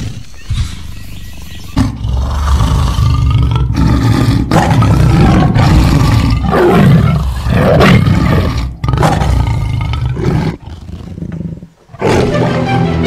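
Loud, rough animal roars and growls, a film sound effect, in several long surges with short breaks. The roaring starts suddenly and stops about a second before the end, when music comes back in.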